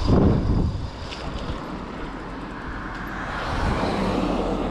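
Steady road noise of a moving vehicle with wind on the microphone, swelling for a second or so about three and a half seconds in.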